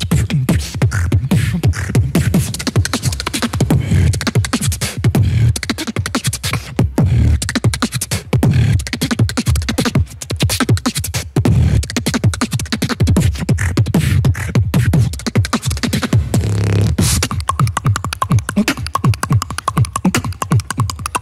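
Solo beatboxing into a microphone: a fast click combo of sharp mouth and tongue clicks over deep kick sounds, broken by a brief held note about three-quarters of the way through.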